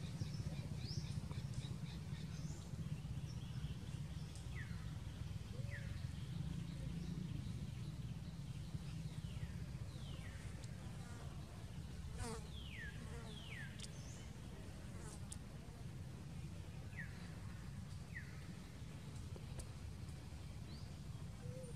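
Insects buzzing steadily outdoors, with scattered short, high, falling chirps.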